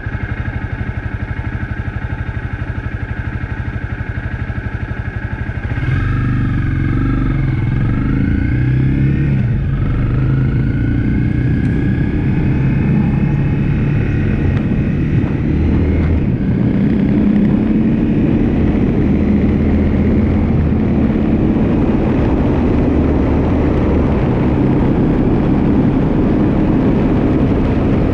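Motorcycle engine running steadily, then speeding up about six seconds in with its pitch rising and dropping through gear changes, then cruising steadily under way.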